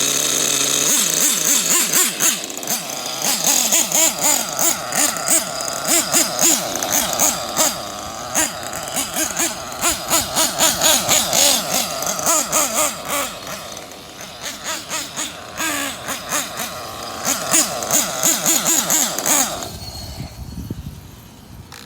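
Small nitro (glow-fuel) engine of a Kyosho Inferno NEO ST 3.0 RC truck running at high revs, its pitch rising and falling over and over as the throttle is worked. The sound drops away sharply near the end.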